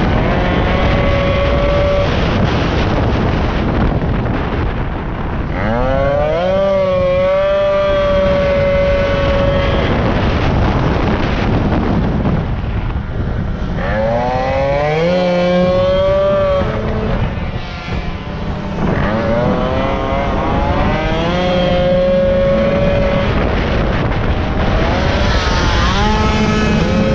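Racing moped's small two-stroke engine at full throttle, climbing steeply in revs four times and holding high revs in between, with wind rushing over the microphone.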